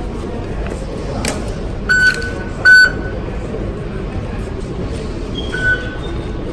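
Dubai Metro fare-gate card readers beeping: three short high beeps, the second the loudest, over the steady hum of the station concourse.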